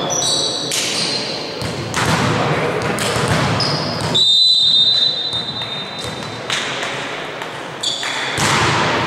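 A volleyball bouncing on a hardwood sports-hall floor among squeaking shoes, then about four seconds in a referee's whistle: one steady high tone of about two seconds, the signal to serve.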